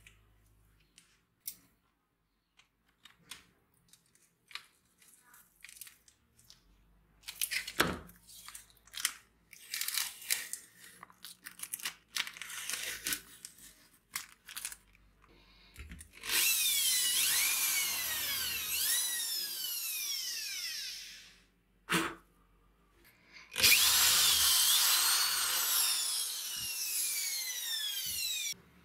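Handheld power tool running in two loud spells of about five seconds each, its whine sliding down in pitch and back up several times. Before that come scattered crunching and scraping sounds.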